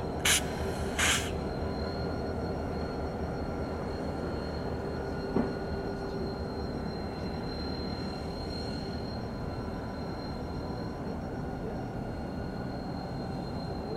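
Diesel locomotive (a GP40M-3) running as it creeps through a rail yard: a steady low rumble with faint high steady tones. Two short loud bursts of hiss come near the start, and a single knock about five seconds in.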